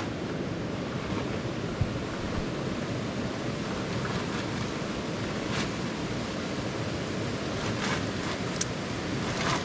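A steady rushing noise outdoors, with a few faint knocks in the second half.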